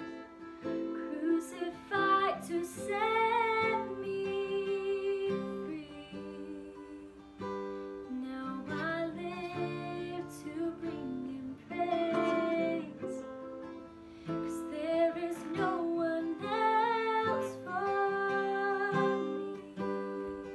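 Worship song: acoustic guitar strumming chords under a sung melody, in phrases of a few seconds each.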